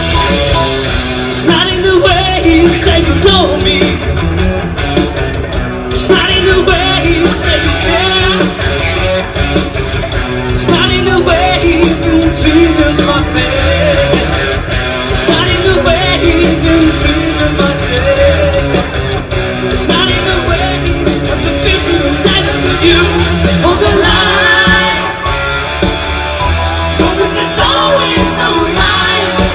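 Rock band playing a song, with singing over guitar and a steady run of drum hits.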